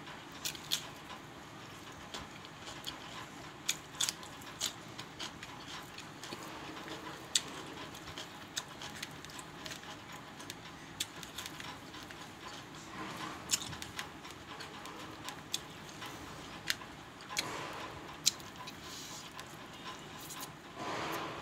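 A person eating close to the microphone: irregular sharp clicks of chewing and lip smacking, with a few longer crunches of raw cucumber and cauliflower.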